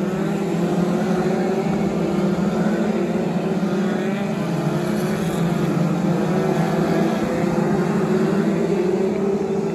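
Several BriSCA F2 stock cars racing together, their engines running in a steady, loud mix.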